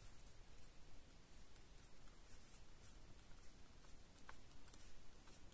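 Faint light taps of a silver pen's tip dotting onto card stock, over quiet room tone.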